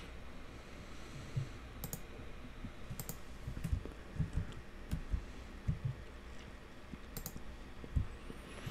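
Computer mouse clicks and keyboard arrow-key presses: a few sharp clicks among softer taps.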